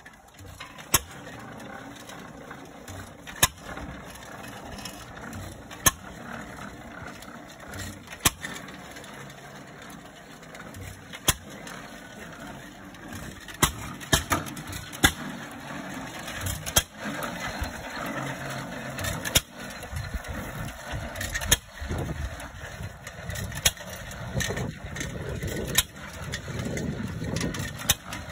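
Economy 5 hp single-cylinder hit-and-miss engine running, a sharp bang each time it fires and the engine coasting between fires. It fires about every two and a half seconds at first, then more often from about halfway, when the tractor is moving under its own power. Its steel wheels roll over gravel as it goes.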